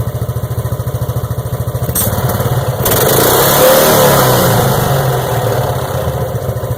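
Mokai motorized kayak's engine running with an even pulsing beat, revving up from about two seconds in and easing back down toward the end.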